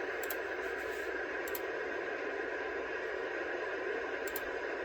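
Radio receiver hissing with steady static, with no program audio, and a few faint ticks.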